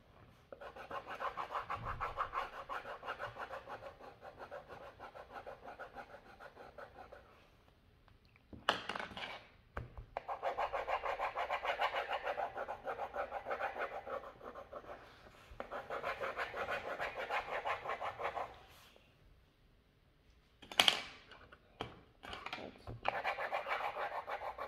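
Coloured pencil shading on paper on a tabletop: fast back-and-forth scratching strokes in long runs, stopping and starting a few times, with a brief louder noise about 9 s in and again about 21 s in.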